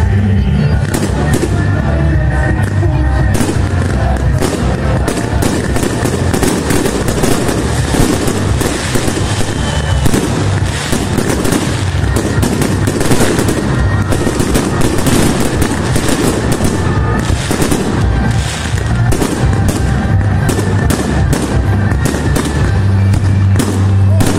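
Fireworks going off in quick succession, a dense run of bangs and crackles several a second. Music with a steady bass line plays underneath.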